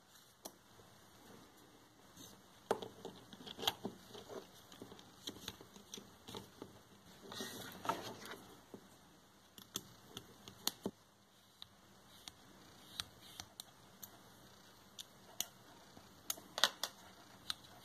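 Faint, scattered clicks and small knocks of 3D-printed plastic parts and aluminium shafts being handled and fitted together, bunched around 3 seconds in, around 8 seconds in, and near the end.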